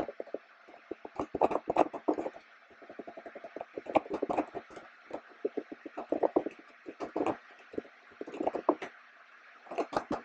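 Typing on a computer keyboard: irregular runs of quick key clicks with short pauses between them, over a faint steady hum.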